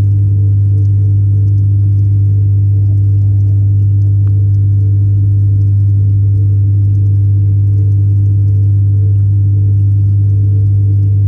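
Loud, steady low hum of a tank pump running, heard through the water, with fainter higher tones above it.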